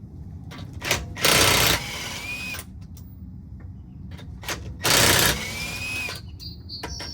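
Impact wrench spinning off the front wheels' lug nuts: two short rattling bursts about three and a half seconds apart, each trailing off in a brief whine, with light clicks and knocks of handling between them.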